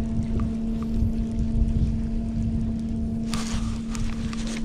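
A steady low hum with rumbling noise on the microphone throughout. A little past three seconds in comes a short rustle as a shirt brushes over the camera.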